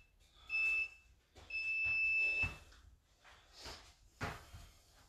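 Interval timer beeping a countdown: a short beep, then one long beep of about a second, signalling the start of a 30-second work interval. Then a few soft footfalls of lunges on a rubber gym floor.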